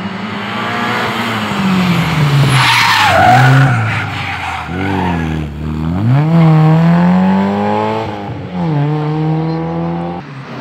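Rally car's engine revving hard as it passes close and drives off, the note dropping and climbing again several times as it lifts, brakes and changes gear. A rush of tyre noise comes about three seconds in as it passes closest.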